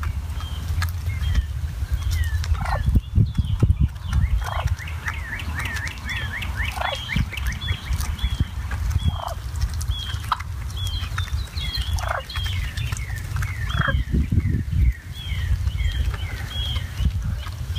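A flock of wild turkeys calling, with many short, quick clucks and a longer falling call every couple of seconds, over a steady low rumble.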